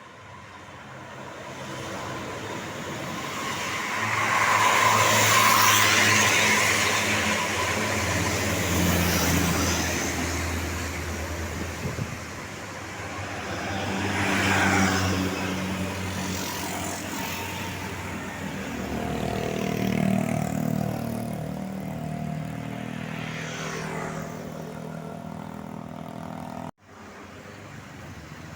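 Road traffic passing close, large vehicles such as buses among it: engine noise and tyre rush swell as each one goes by. The loudest pass comes about five seconds in, with further passes around fifteen and twenty seconds, and the sound cuts off abruptly near the end.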